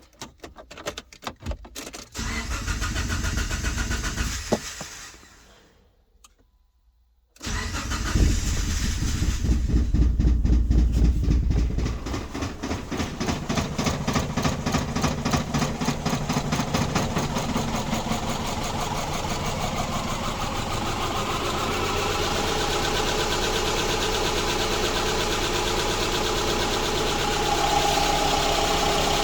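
Subaru Impreza flat-four engine running, then stopping, then started again about seven seconds in. After a loud first few seconds it settles into a rough, uneven idle, misfiring on cylinders 1 and 3.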